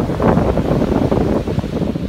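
Wind buffeting the microphone, over the wash of ocean surf breaking and running up the sand.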